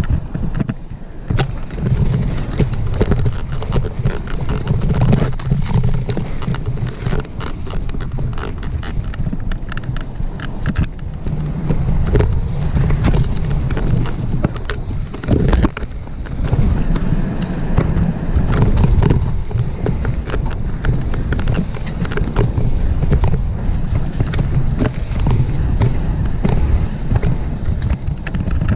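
Full-suspension mountain bike descending a rough dirt trail: a steady low rumble from the tyres with constant rattling and clattering as the bike jolts over bumps, and one sharper knock about halfway.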